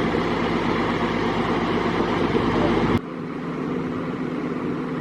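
A vehicle engine running steadily with a low hum. About three seconds in, the sound drops off abruptly, as at an edit, and then carries on more quietly.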